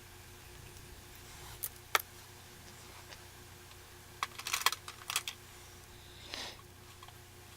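Small hard clicks and taps of makeup items being handled and set down: two sharp clicks about two seconds in, then a quick run of clatter around the middle, followed by a brief soft rustle.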